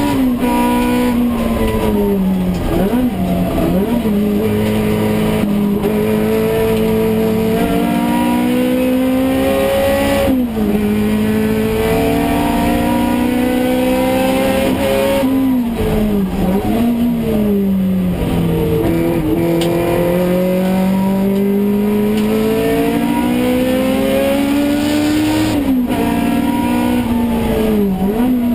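Toyota AE86 race car's four-cylinder engine heard from inside the cabin, revving up hard through the gears. The pitch drops sharply at an upshift about ten seconds in and again near the end. Around three and seventeen seconds in it falls away with quick throttle blips, as it downshifts for corners.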